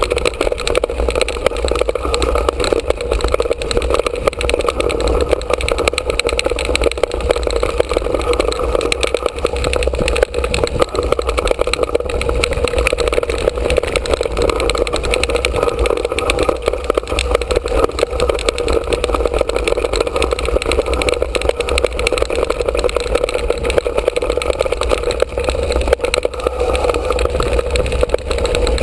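Mountain bike rolling fast down a dirt trail, heard through a GoPro mounted on the bike: a steady, loud rumble of wind and tyre noise with constant rattling.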